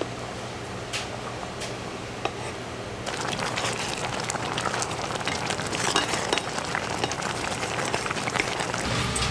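Thick tteokbokki sauce simmering in a stainless steel pot, bubbling and popping while a silicone spatula stirs it, over a steady low hum. About three seconds in, the bubbling grows louder and busier, with many small pops.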